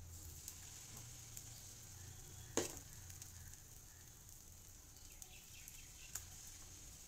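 Faint sizzle of rice batter hitting and being spread over a hot oiled iron griddle, with a sharp clink of the spoon against the pan about two and a half seconds in and a lighter one near the end.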